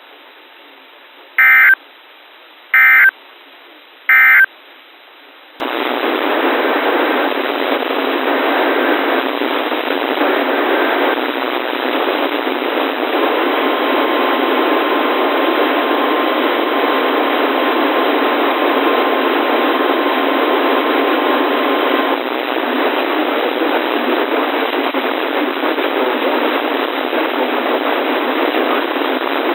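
Weather radio broadcast sending three short end-of-message data bursts about a second and a half apart, signalling the end of the warning. About five and a half seconds in, loud radio static begins and carries on, with a faint steady tone sounding through it for several seconds in the middle.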